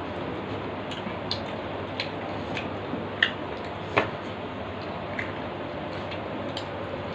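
Eating by hand from steel plates: scattered soft clicks and smacks of chewing and of fingers tearing roti and scooping curry off the metal, the sharpest about four seconds in, over a steady background hiss.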